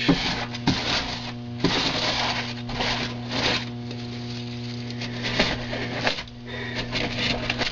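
Extruded foam board being scraped and torn out with a hand tool to carve rock formations. It comes as a series of rough, scratchy strokes, each under a second and irregularly spaced, over a steady low electrical hum.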